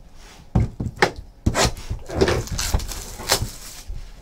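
Trading cards and cardboard card boxes being handled on a desk: several sharp taps and knocks, with rustling of packaging in between.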